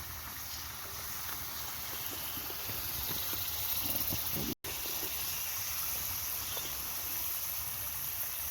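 Chicken cooking in its gravy in a pan, a steady sizzling hiss. It cuts out for an instant about halfway through.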